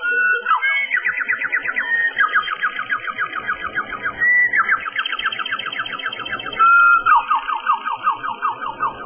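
Linnet song: a run of fast trills, each phrase a rapid string of notes at one pitch, stepping between higher and lower phrases with short gliding notes in between.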